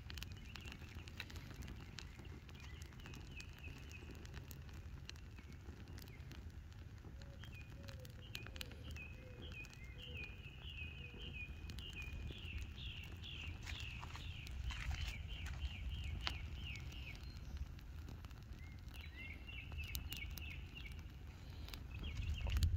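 Welcome mat burning, its fire crackling with scattered small pops over a low steady rumble. A bird sings runs of quick repeated chirps, longest through the middle.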